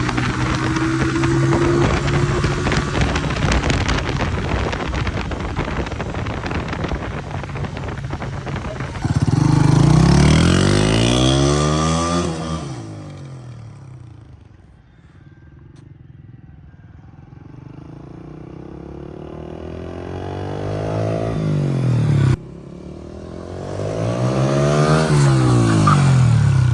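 Motorcycle engine running and passing close by, its sound rising and falling in swells, with an abrupt break near the end.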